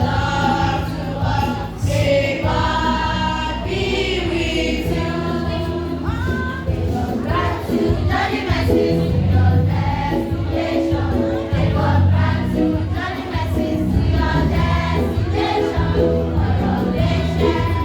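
A choir singing a gospel song with music accompanying it, a steady bass line under the voices.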